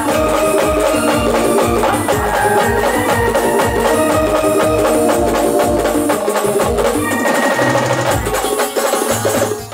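Live band music through a large sound system: an amplified keyboard melody over steady, heavy drumming. The low drum beat drops out for a moment about seven seconds in, then comes back.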